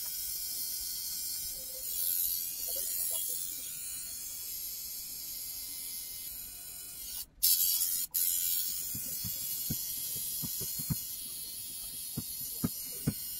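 Electric tattoo machine buzzing steadily as a tattoo on the neck is shaded. It gets briefly louder a little past halfway, and a few soft knocks come near the end.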